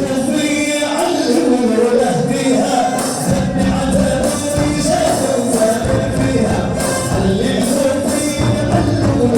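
Moroccan wedding music: singing over hand percussion with tambourine jingles and a steady beat.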